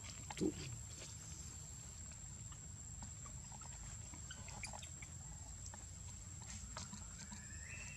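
Faint forest background with a steady high whine and scattered small ticks; about half a second in, one short low call falling in pitch from a monkey.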